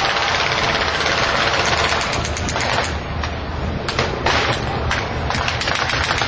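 Simulated machine-gun fire from airshow battle pyrotechnics: a dense, rapid rattle of shots with short lulls, over a low steady drone.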